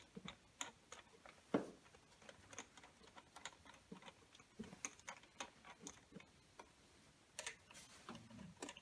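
Faint, irregular clicks and light metal ticks from bolts being set and threaded by hand into an engine's intake manifold, with one sharper tap about a second and a half in.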